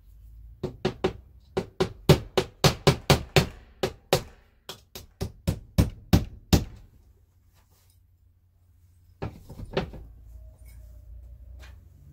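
Claw hammer driving a nail into HardiePlank fiber-cement lap siding: a quick run of about twenty sharp blows, roughly three a second, then a pause and two or three more blows about three-quarters of the way through.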